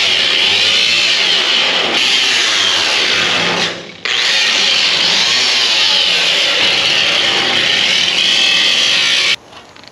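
DeWalt angle grinder grinding steel on an auger tube: a loud, harsh high whine that wavers up and down as the disc is pressed and eased. It drops out briefly about four seconds in, runs again, and cuts off abruptly near the end.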